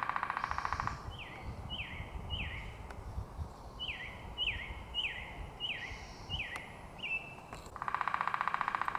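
Wild birds singing: a rapid trill near the start and again near the end, with a run of short, downward-sliding whistled notes about two a second in between, over a low background rumble.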